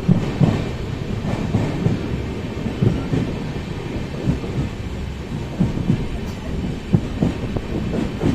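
Express train running along the line, heard from on board: a steady low rumble with irregular heavy thuds of wheels over the track.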